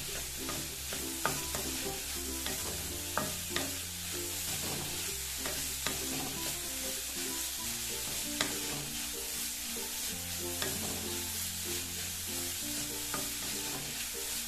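Onions, green peas and carrots sizzling in oil in an aluminium kadai while a flat spatula stirs them, with scattered sharp clicks and scrapes of the spatula against the pan.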